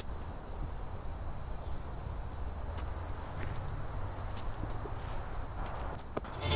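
Woodland ambience dominated by insects droning steadily at a high pitch, with a few faint ticks and rustles scattered through it.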